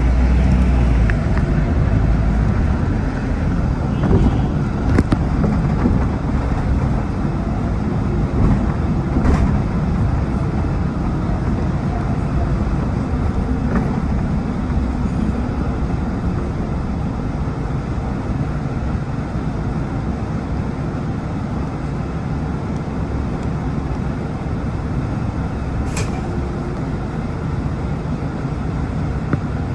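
Bus interior while driving in slow city traffic: the engine's low rumble and road noise, growing gradually quieter, with a few faint clicks and rattles from the cabin.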